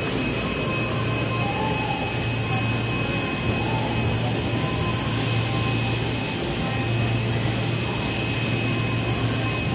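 Steady machinery din of a working print shop: a continuous mechanical rush with a low hum that swells and eases and a faint steady high whine.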